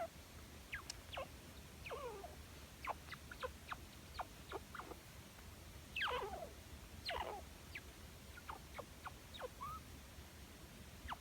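Chinchilla squeaking: a scattered run of short chirps that each slide down in pitch, with two longer, louder calls about six and seven seconds in.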